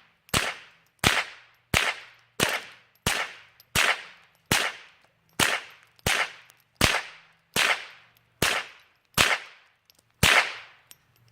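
.22 LR gun fired in a steady string, about fourteen sharp cracks in ten seconds, each with a short fading echo.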